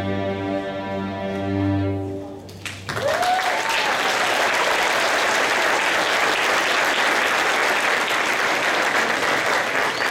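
School string orchestra of violins, cellos and double basses holding a final sustained chord that cuts off about two and a half seconds in. Audience applause follows and keeps up steadily.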